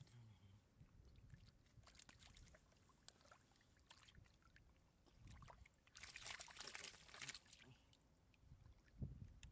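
Shallow muddy water sloshing and splashing faintly as hands grab a fish, with a louder burst of splashing about six seconds in that lasts around a second.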